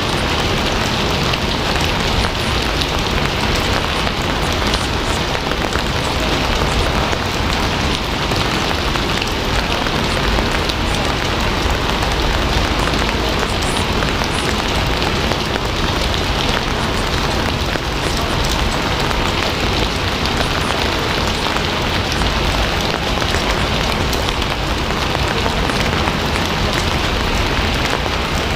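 Steady rain falling on a surface, an even hiss with no breaks.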